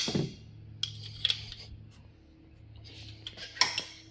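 Wrench working on an engine's exhaust header bolts, a few sharp metallic clicks, the loudest near the end, as loose bolts are checked and tightened. A faint steady low hum lies underneath.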